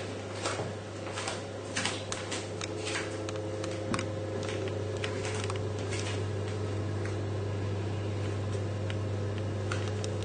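A steady low hum, with scattered light clicks and knocks of kitchenware being handled, most of them in the first three seconds.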